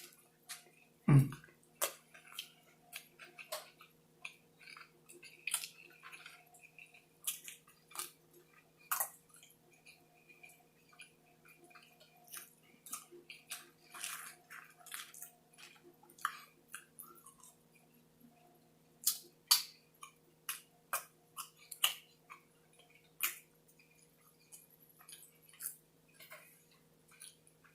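A person chewing a triple Whopper burger with extra onion close to the microphone: irregular wet mouth clicks and smacks, with a thump about a second in and a faint steady hum underneath.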